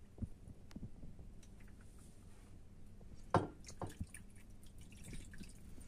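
Water poured from a glass jug trickling and dripping faintly onto a metal baking tray, with a soft knock about three and a half seconds in.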